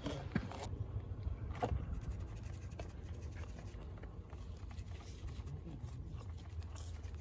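Handling noise from a mesh insect net being shaken and rubbed over a plastic collecting box: a few sharp scrapes and clicks in the first two seconds, then softer rustling over a steady low rumble.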